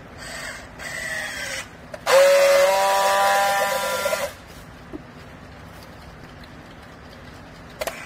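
Handheld battery-powered plastic strapping tool working on a polypropylene strap around a bale: two short motor whirs that drop in pitch, then a louder steady motor whine for about two seconds that cuts off sharply as it tensions and welds the strap.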